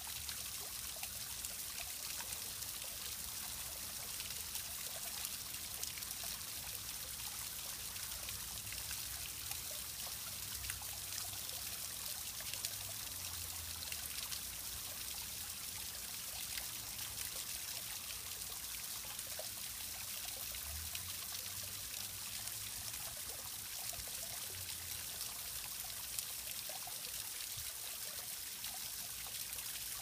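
Small stacked-rock garden-pond waterfall trickling and splashing steadily into the pond.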